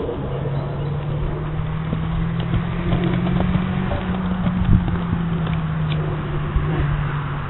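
Hooves of a cantering horse thudding on grass, loudest about halfway through as it passes close. A steady low hum, like a distant engine, sounds along with it.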